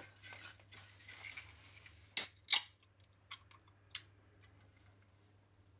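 Two sharp camera-shutter clicks about a third of a second apart, followed by a few fainter clicks over soft rustling.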